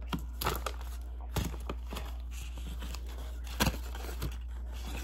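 Folded white paper crafts rustling and crinkling as they are handled, with a few sharp taps and knocks on a wooden tabletop, the sharpest about three and a half seconds in, over a steady low hum.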